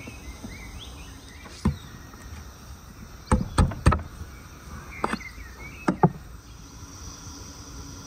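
Large knife blade being driven into and levered through the tin lid of a can of condensed milk: a series of sharp knocks and clicks, three in quick succession near the middle.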